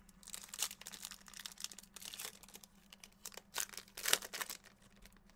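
Plastic wrapping on a pack of 2016 Topps Strata baseball cards crinkling and tearing as it is opened, in short irregular rustles.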